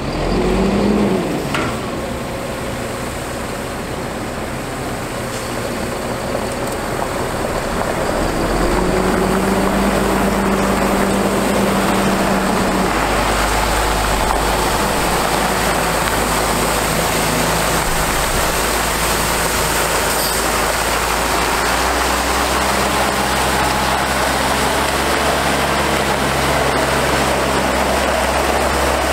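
Caterpillar C7 diesel engine of a Freightliner M2 water truck running as the truck drives, under the steady hiss of water spraying from its spray heads. The sound gets louder about eight seconds in and then holds steady.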